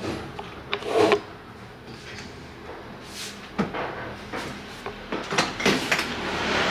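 Sharp plastic knocks and clicks with some rubbing as the Yamaha Tracer 9 GT+'s rider seat and under-seat bodywork are handled and the seat is set back onto its mounts. The loudest knock comes about a second in, and a quick cluster of clicks follows near the end.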